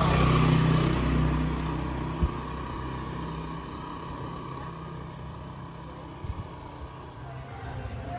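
A motor vehicle's engine passing close by, loudest about half a second in and fading over the next few seconds into steady traffic noise. There is one sharp knock about two seconds in.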